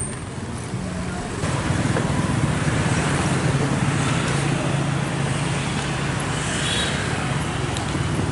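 Street traffic noise: motorbike engines running close by, with a steady low hum. The traffic gets louder about a second and a half in.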